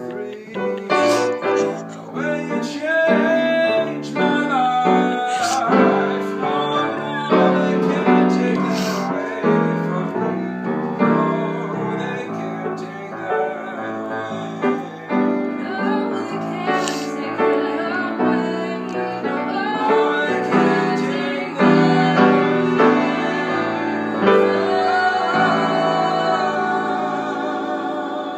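Music: singing over a piano accompaniment.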